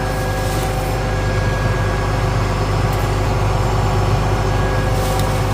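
Combine harvester running steadily: a continuous low engine drone with a few steady machine tones over it.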